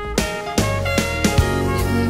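Instrumental passage of a song with no singing: sustained pitched tones over regular drum hits, with a bass line coming in about half a second in.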